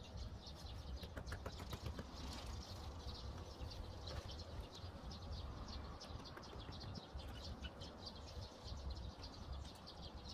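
Faint outdoor ambience: small birds chirping in many quick, short calls over a low steady rumble.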